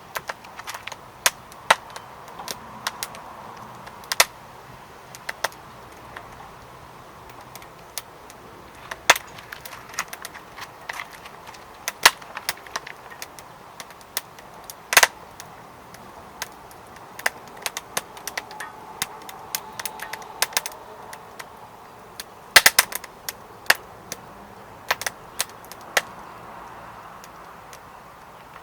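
Firewood burning in a secondary-combustion fire pit, crackling with sharp, irregular pops, some in quick clusters, over a faint steady hiss.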